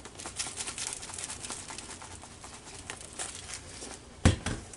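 Lemon pepper being shaken from a large spice shaker jar onto chicken in a bowl: a quick run of light ticks and rattles. About four seconds in comes a single heavier thump.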